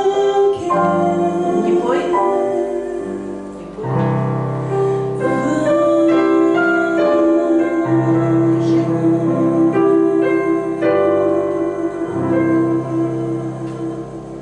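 A woman sings a jazz standard into a microphone, with a digital piano accompanying her in chords. She holds long notes, and the sound dies away near the end.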